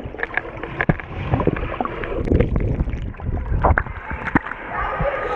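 Muffled water sloshing and splashing around a submerged action camera, with many short bubbly pops and knocks, as the camera moves under and back up through the surface of a swimming pool.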